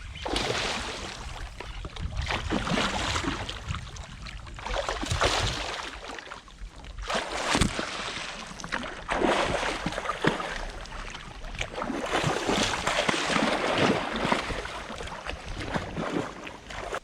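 Water sloshing and splashing around a small boat on a river, rising and falling in surges every couple of seconds.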